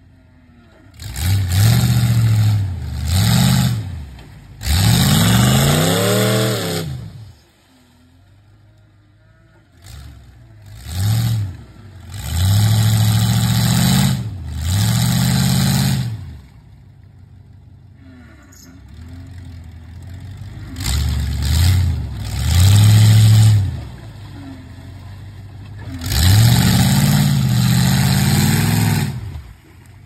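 Pickup truck engine revving hard in repeated bursts, each about one to two and a half seconds long, dropping back to a low idle between them. The truck is churning its mud tires through deep creek mud.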